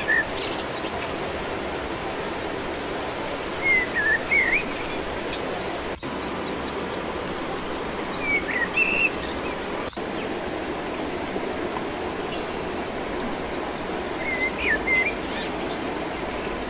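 Steady rush of running water with a bird giving a short chirping call about every four to five seconds. A faint thin high tone joins in the second half.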